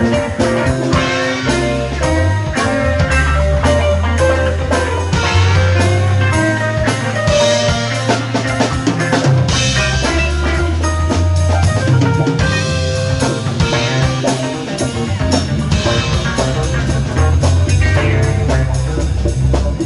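Live rock band playing an instrumental passage: drum kit, electric guitars and bass guitar.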